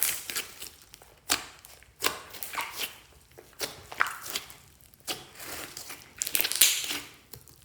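Clear slime mixed with store-bought slime being squeezed and poked by hand, giving sharp wet squelches and pops about once a second, with a quick run of crackly pops a little before the end.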